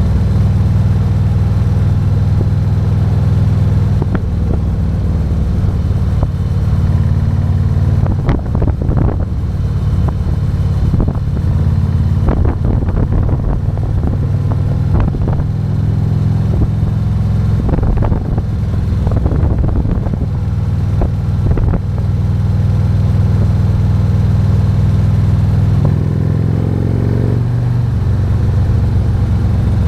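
Harley-Davidson Road King's 117 cubic inch V-twin running steadily while riding, with a stretch of short bursts of wind or road noise in the middle. Near the end the engine note rises and then drops back.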